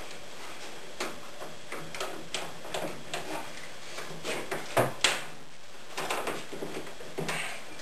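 Light wooden knocks and clicks as cedar planking is handled and fitted at the stem of a canoe on its building form, with two sharper knocks about five seconds in.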